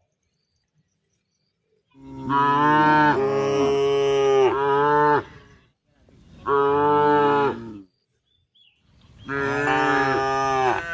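Cow mooing: three loud, drawn-out calls, the first the longest, the last still going at the end.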